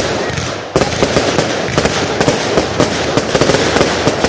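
Fireworks display: a dense, rapid run of pops and bangs over a continuous crackle, stepping up in loudness just under a second in.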